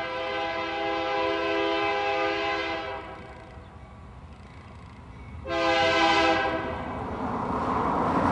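Diesel freight locomotive's multi-chime air horn sounding a long blast, then a shorter one about five and a half seconds in, with the rumble of the approaching train growing louder near the end.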